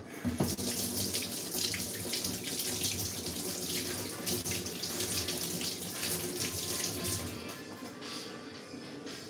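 Kitchen tap running water into a sink: a steady rush that starts with a knock and drops off about seven and a half seconds in.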